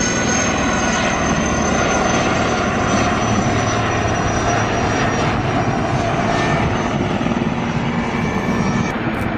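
IAR 330 Puma helicopter flying past, its twin Turbomeca Turmo turboshaft engines and rotor making a loud, steady noise. A high turbine whine sits on top and falls slightly in pitch.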